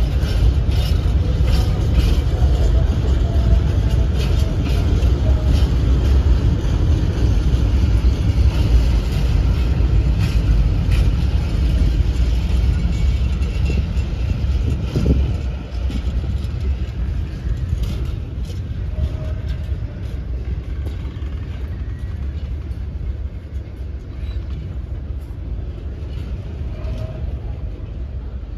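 Freight train of covered hopper wagons rolling past: a steady low rumble of steel wheels on rail with repeated clicks and clacks. A short rising squeal near the middle, and the rumble eases off in the second half.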